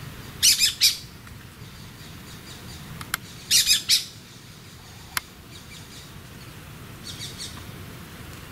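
Grey-breasted parakeet calling: two loud bursts of three quick, high calls about three seconds apart, then a fainter group of calls near the end.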